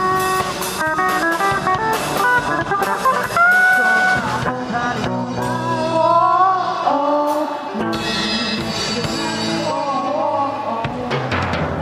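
Amateur rock band playing live: an electric guitar solo of quick runs and a held, bent note, then a voice singing over the band in the second half.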